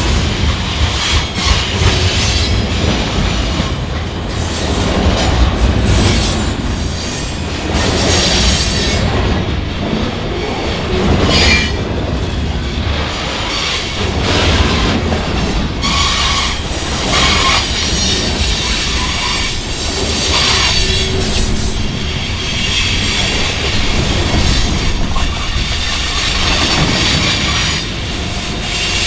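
CN freight train cars rolling past in a steady, loud rumble, their wheels clacking over rail joints and squealing at times.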